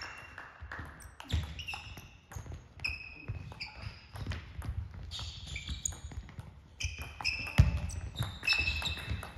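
Table tennis rally: the ball clicking back and forth off the bats and table at an uneven pace of roughly a couple of hits a second. Players' shoes squeak briefly and feet thud on the sports-hall floor, with the heaviest footfall about three-quarters of the way through.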